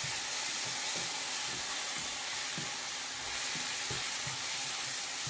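Diced chicken and peppers sizzling steadily in a stone-coated frying pan, stirred with a wooden spoon that knocks and scrapes against the pan every half second or so.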